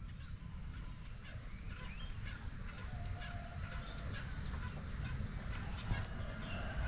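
Outdoor morning ambience: many short bird chirps and brief calls, scattered irregularly, over a steady high hiss and a low rumble of wind on the microphone.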